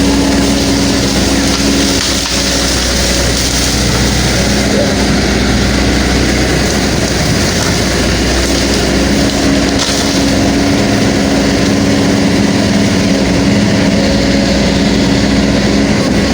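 Excavator's diesel engine running steadily close by, its hum shifting slightly in pitch as it works.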